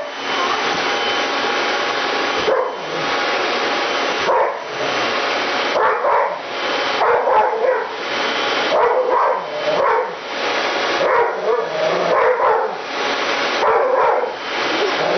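Pit bull barking and yelping over and over at a running vacuum cleaner, about one short call a second over the vacuum's steady whirring, which dips briefly a few times.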